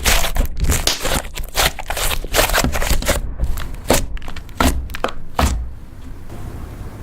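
Hands squishing and kneading butter slime: an uneven run of squishes and pops that thins out near the end.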